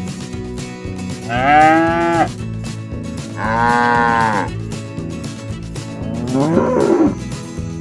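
Cattle mooing: three long calls, each about a second, the last one a tangle of overlapping rising and falling pitches.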